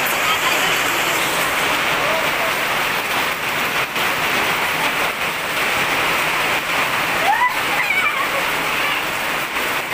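Steady rain falling and splattering, an even hiss throughout. A woman laughs briefly about seven seconds in.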